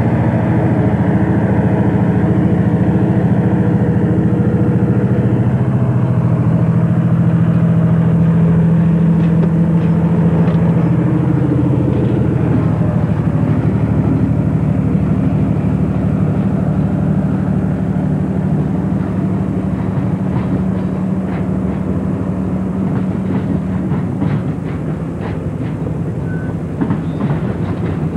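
EMD SW1200 switcher locomotive's diesel engine running as it rolls by, a steady low drone that is strongest in the first half. In the second half, sharp clicks of its wheels over rail joints come in, growing more frequent near the end.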